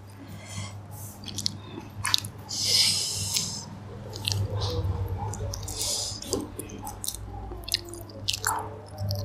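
Shells of cooked prawns being peeled by hand: crisp crackles and clicks, with a few longer tearing rustles, mixed with close-up chewing.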